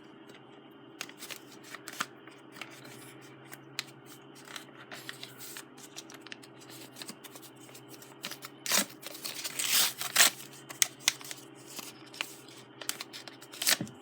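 A mail envelope being handled and opened by hand: scattered rustles and clicks of paper and packaging, with a louder stretch of rustling and tearing about nine to ten seconds in. A low steady hum runs underneath.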